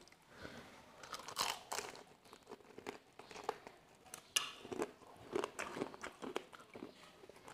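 Biting into and chewing a homemade fried chicken drumstick close to a clip-on microphone: irregular crisp crunches of the fried coating with chewing in between.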